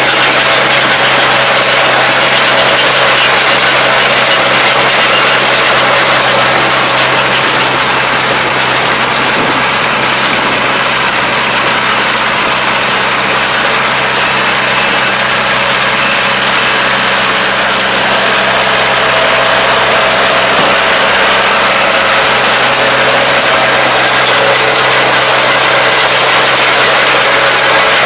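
Half-track tractor's diesel engine running steadily under load while it drives a PTO-powered round baler, whose pickup and bale chamber work continuously as they gather rice straw: a loud, even mechanical noise over a constant low hum.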